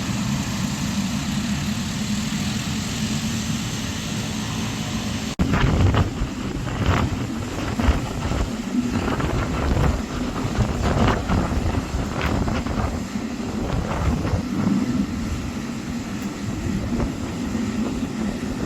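Jet airliner noise from plane-spotting footage: a steady rumble with a low hum. About five seconds in it cuts abruptly to a rougher noise that surges unevenly.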